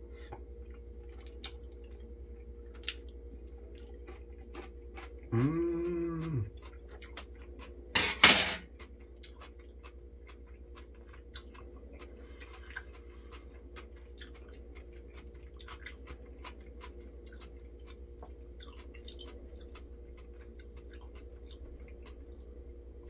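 A man eating: chewing, with small scattered clicks of cutlery on a plate. About five seconds in comes a hummed, drawn-out "mmm" of enjoyment that rises and falls in pitch, and a little after eight seconds a brief sharp noise.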